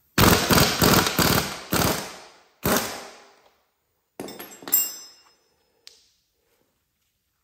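A tool working loose the rear axle nut of a motorcycle: a rapid run of loud impacts for about two seconds, then one more. Lighter rattling follows about four seconds in, and a single click near six seconds.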